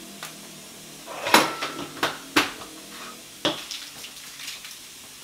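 Kitchen items being cleared off a countertop: several sharp knocks and clinks of dishes and utensils, the loudest about a second and a half in, over a low steady background.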